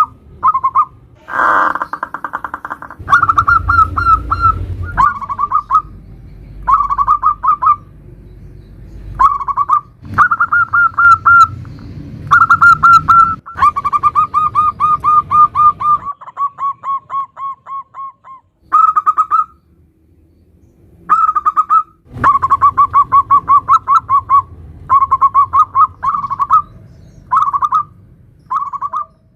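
Zebra dove (perkutut) cooing in the fast stuttering 'nutut' style: repeated loud phrases of quick pulsed coos, about a dozen phrases with short pauses between them. A low rumble sits under some of the phrases.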